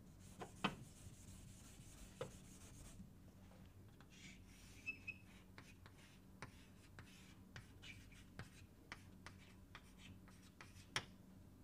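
Faint sounds of writing by hand: a scratchy stroke over the first few seconds, then scattered light taps and clicks, one sharper click near the end, over a faint low hum.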